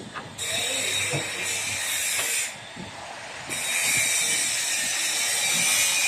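A plastic baler's hydraulic power unit running with a steady high hiss and a thin whine. It drops out for about a second midway, then comes back louder, with a few light metallic clicks over it.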